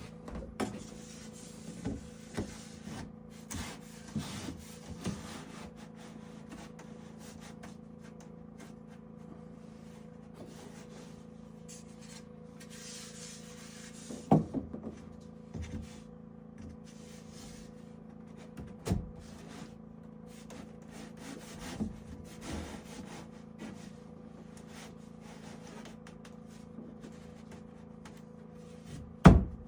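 Wooden boards being handled and worked by hand: scraping and rubbing of wood on wood, with scattered knocks and a few louder thuds, the loudest pair near the end.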